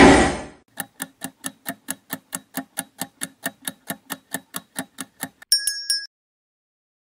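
Quiz countdown sound effect: a short burst at the start, then clock-like ticking at about four ticks a second for some four and a half seconds. It ends in a bright chime that marks time up and the answer reveal.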